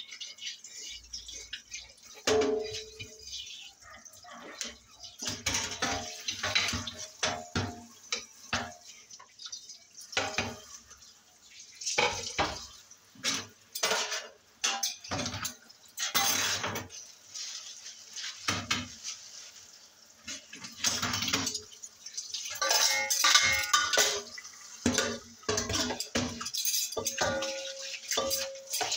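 Dishes, pots and cutlery clattering and clinking in a sink as they are washed by hand, irregular knocks with brief ringing clinks, with some water.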